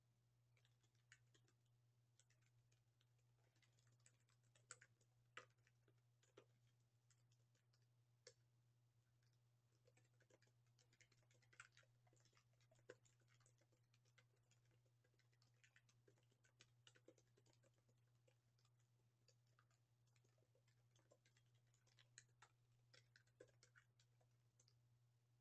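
Faint computer keyboard typing: irregular keystrokes, in small clusters, over a steady low hum.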